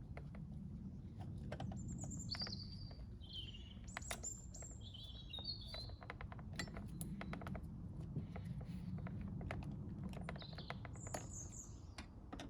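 Birds chirping in short calls, a cluster near the start and a few more near the end, with scattered clicks and taps over a low steady rumble.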